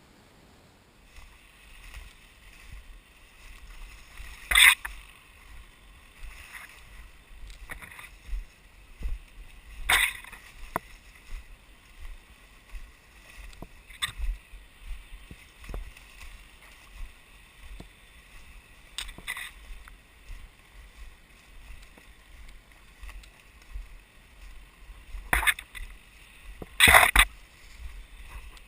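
Footsteps and rustling through leaf litter and undergrowth while hiking, irregular, with a few sharp louder cracks or knocks about five and ten seconds in and twice near the end.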